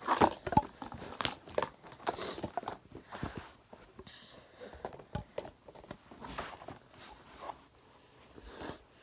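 Irregular handling noises: scattered clicks, taps and rustles, loudest in the first second and again near the end.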